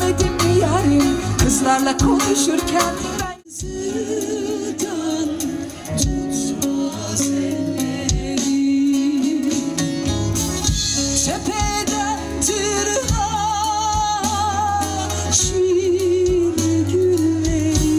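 A woman singing into a microphone over amplified backing music with a steady bass line, heard through a PA. The sound drops out for a moment about three and a half seconds in.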